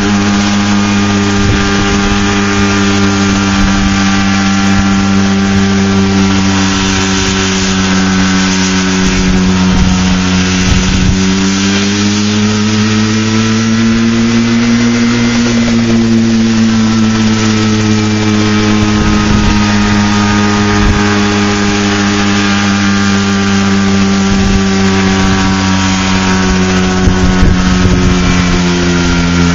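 AW 95 single-seat ultralight helicopter running while it hovers just above the ground, its engine and rotor making a loud, steady drone. The pitch rises a little for a few seconds around the middle and then settles back.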